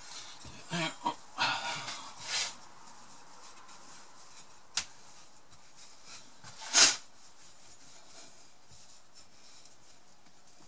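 Chilled pastry dough being worked by hand and with a wooden rolling pin on a floured worktop: soft rubs and knocks at the start, then a single sharp tap a little before the middle. The loudest sound is a short hiss about two-thirds of the way through.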